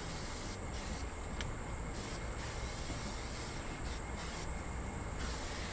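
Aerosol oil spray hissing in irregular bursts onto the hot grates of a propane grill, with steady sizzling underneath as the oil burns on during seasoning.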